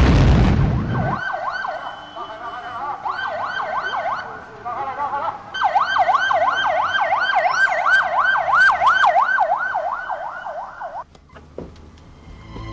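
Police car siren yelping, its pitch sweeping up and down quickly, about two to three times a second, with short breaks, and cutting off near the end. A loud rushing burst comes first, in the opening second.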